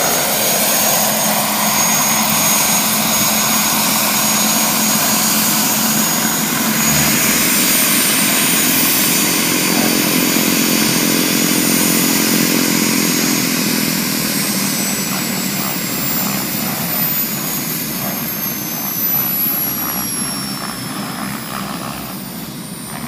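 Radio-controlled scale model helicopter running, a high whine over a dense rotor noise. About halfway through the whine slides slowly down in pitch, and the sound gets quieter near the end.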